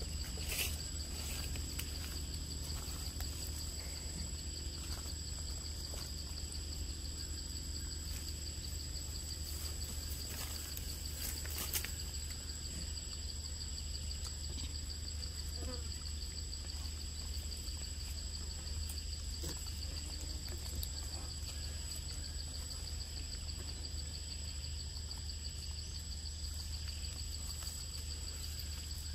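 Steady high-pitched drone of insects, two pitches held unbroken, over a low rumble. A couple of short clicks break through, one of them about twelve seconds in.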